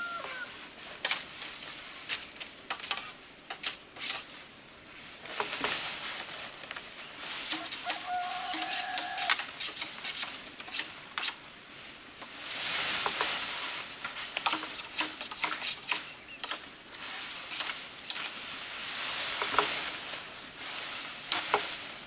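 Irregular sharp knocks and clicks with several swells of rustling or scraping noise, and a short steady call about eight seconds in.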